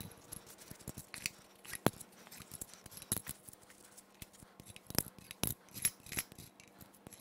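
Loosened cylinder head bolts being drawn out of a BMW B38 engine's aluminium head by hand and clinking together in a bunch: scattered, irregular light metallic clicks.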